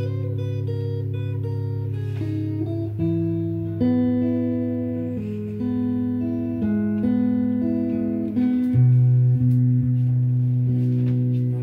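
Guitar playing a slow blues: a melody of held single notes over a sustained low bass note, which steps up about three-quarters of the way in.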